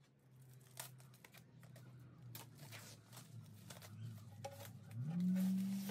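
Plastic shrink-wrap on round pine boards being handled and torn, with scattered crinkles and clicks. A low hum runs underneath and rises in pitch about five seconds in, becoming the loudest sound.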